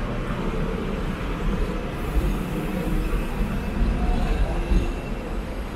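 Hong Kong electric double-decker tram running along its street track, a steady low rumble of the wheels on the rails, heard from on board.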